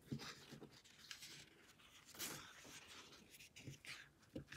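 Faint rustling and swishing of a paperback picture book's page being turned and smoothed flat by hand, loudest about two seconds in, with a few light taps.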